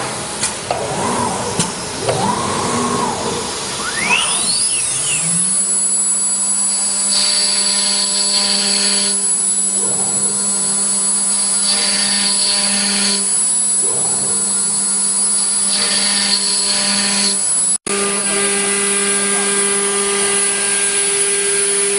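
ATC CNC router spindle winding up to speed about four seconds in with a steeply rising whine, then running steadily with a high whine and a lower hum as it routes grooves into a wooden door panel. A hiss comes and goes every few seconds during the cutting.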